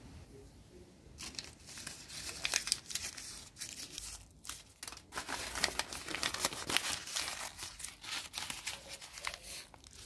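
Paper and a plastic bag being handled and crumpled by hand, crinkling and rustling in irregular bursts that begin about a second in.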